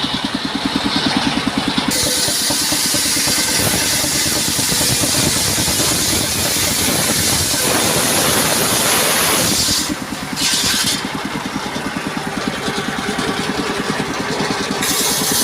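Engine-driven homemade circular saw running, with a steady engine beat underneath. About two seconds in, a loud hiss of the blade cutting timber starts and carries on. It breaks off briefly around ten seconds and again near the end, between passes.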